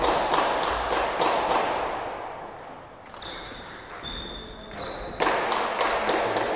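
Table tennis balls clicking off bats and the table in quick succession, echoing in a large sports hall; the clicking drops away for a few seconds mid-way, then resumes.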